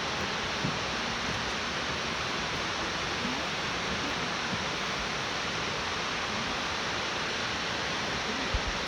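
Steady rushing roar of Kirifuri Falls, a waterfall, an even wash of water noise that neither rises nor falls.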